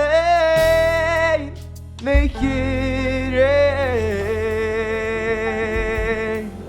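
A singer holds two long wordless notes with vibrato over a low, steady instrumental accompaniment. The second note steps down in pitch partway through.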